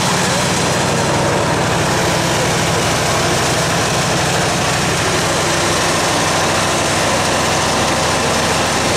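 1975 Jelcz 021 articulated city bus's diesel engine idling steadily with the bus standing still, an even low running note that does not rise or fall.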